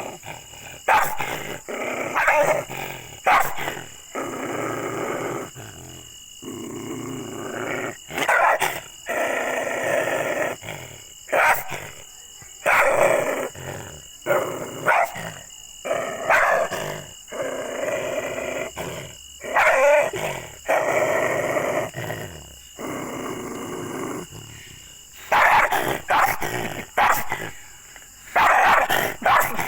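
A dog barking aggressively in loud, sharp, irregular barks, with stretches of growling between them.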